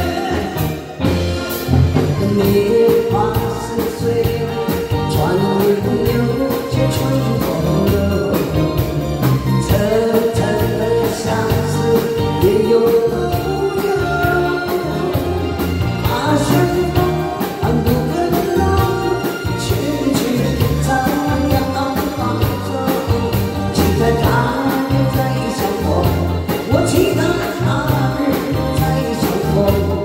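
A woman singing a ballad into a microphone, backed by a live band of electric guitar, keyboard and drums.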